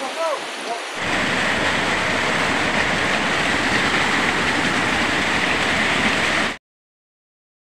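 Loud rushing river water, an even roar that starts abruptly about a second in and cuts off suddenly near the end.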